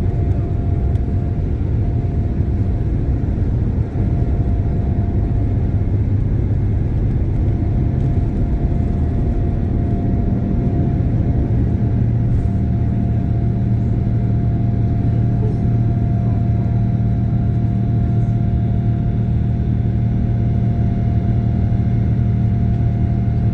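Boeing 787-9 Dreamliner's jet engines running at takeoff power: a loud, steady rumble with a constant mid-pitched tone. A low hum grows stronger about ten seconds in.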